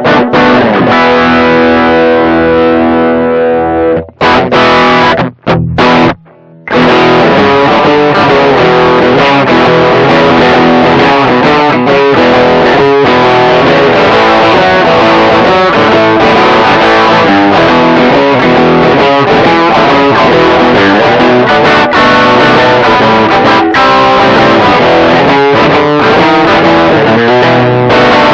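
Electric guitar played through a Caline Orange Burst overdrive pedal, a clone of the Xotic BB Preamp, giving a distorted tone. A chord rings out for a few seconds, then a few short stabs come with gaps between them, then about twenty seconds of continuous playing.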